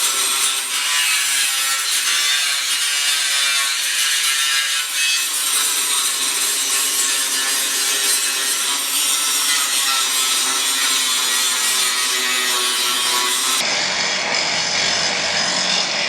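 A grinder grinding down fresh welds on the Bronco's steel bodywork, a steady high, gritty whine. About 13.5 s in, the sound cuts abruptly to a deeper, fuller steady noise.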